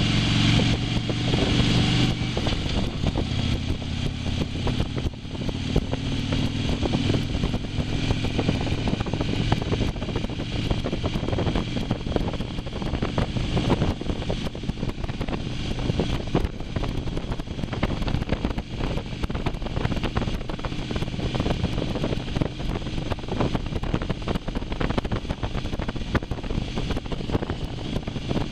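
Motorcycle engine running under way, its tone plain for the first few seconds, then mostly buried under a steady rush of wind noise on the microphone.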